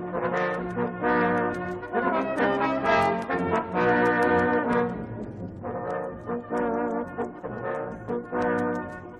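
Instrumental background music of held notes that change every second or so, with short breaks between phrases.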